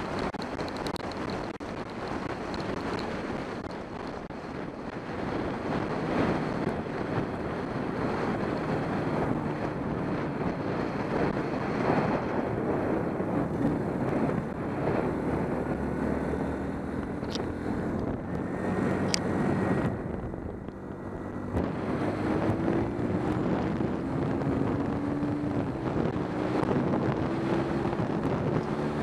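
Wind rushing over the microphone of a moving motorcycle, with the bike's engine running underneath. In the second half the engine note climbs in pitch several times in a row as the bike accelerates up through the gears.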